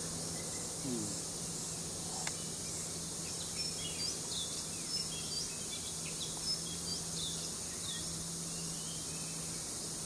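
Tawny-bellied babblers giving a string of short, high chirps, some sliding up in pitch, through the middle few seconds, over a steady high hiss of insects.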